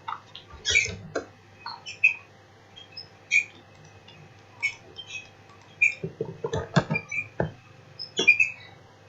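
Scattered short clicks of a computer mouse and keyboard, some bunched together in a quick run about six to seven and a half seconds in, over a faint steady electrical hum.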